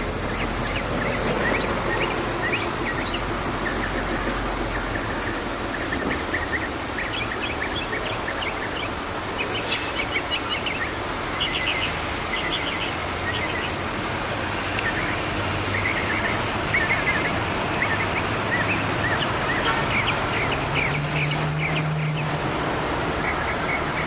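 Northern mockingbird singing: clusters of short, sharp high notes in quick bursts, over steady background noise.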